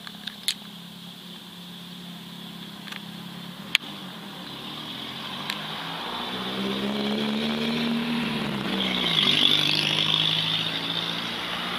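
An engine running steadily, slowly revving up about halfway through and dropping back to idle, with a few sharp clicks in the first half.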